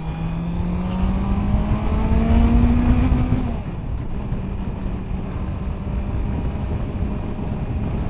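Four-cylinder sport motorcycle engine accelerating, its pitch rising for about three and a half seconds, then dropping back and holding steady at cruising speed. Wind rumbles on the microphone throughout.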